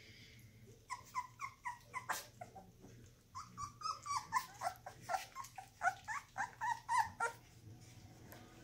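Two-week-old Australian Shepherd puppies whimpering and squeaking: a quick run of short, high cries, some sliding down in pitch, starting about a second in and stopping shortly before the end.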